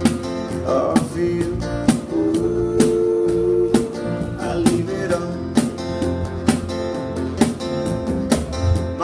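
Acoustic guitar strummed along with a cajon beat, sharp hits about once a second with lighter strokes between. A long held note sounds from about one to four seconds in.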